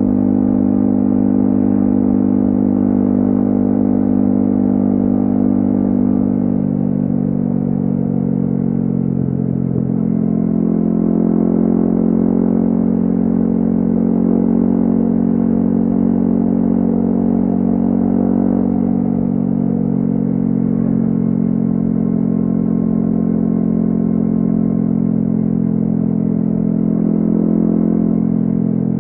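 Yamaha XSR155's 155 cc single-cylinder four-stroke engine through a DIY exhaust, cruising at a steady pace. Its note shifts a little in pitch a few times, around 7, 10, 19 and 27 seconds in, as the throttle changes.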